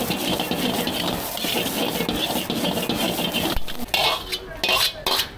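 Egg fried rice being stir-fried in an iron wok: a metal ladle scraping and tossing the rice in a steady, dense scratching. Near the end come a few sharper scrapes and knocks as the wok is tipped and the rice is scooped out.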